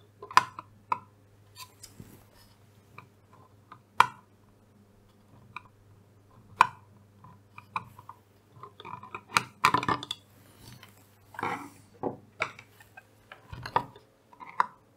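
Scattered clicks and clinks of small hard plastic parts being handled and set down on a desk, with a few louder clatters in the second half, over a faint steady hum.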